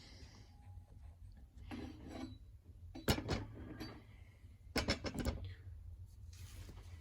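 Tool handling during glue-tab dent pulling on a car body: scraping and rubbing, with sharp clicks and knocks, one about three seconds in and several close together about five seconds in.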